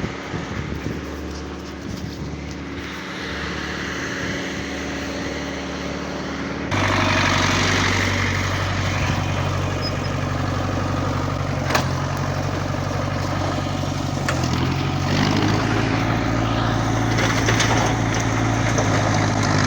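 Engine of a work vehicle running steadily. About seven seconds in it suddenly gets louder and fuller, and stays that way.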